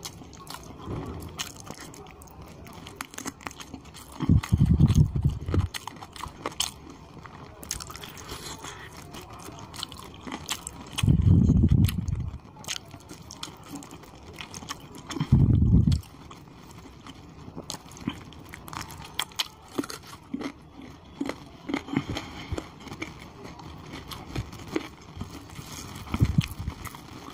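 Close-miked eating by hand: fingers squishing and mixing khichuri rice with chicken curry gravy, and wet chewing and smacking of mouthfuls of chicken, with many small clicks. Three louder, deep thuds come about four, eleven and fifteen seconds in.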